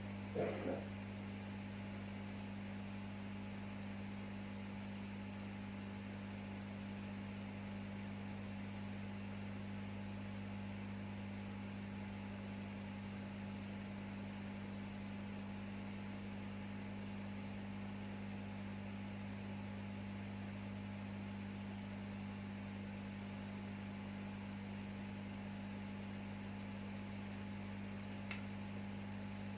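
Steady electrical mains hum with faint hiss, and a single sharp click near the end.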